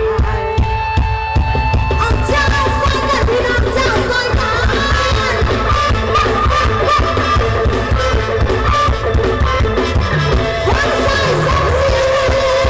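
Loud live band music through a stage PA: keyboard and electric guitar over a steady drum beat, with a singer.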